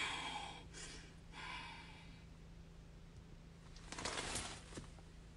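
Faint breathing, with a couple of soft exhales in the first two seconds, then a brief rustle with a few clicks about four seconds in, over a low steady hum.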